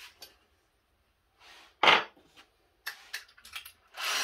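Drill bit being changed in a cordless drill's keyless chuck: a loud metallic clatter about two seconds in, then a run of small clicks and a short rasp near the end as the chuck is twisted by hand.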